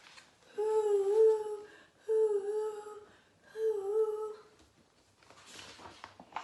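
A woman's voice imitating the howling wind of a snowstorm: three long, wavering 'hoooo' calls.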